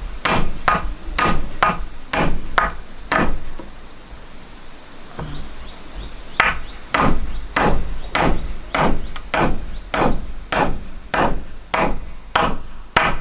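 Hammer striking nails into wood during railing construction, evenly paced at about two blows a second with a faint metallic ring. The blows stop for a few seconds about three seconds in, then carry on.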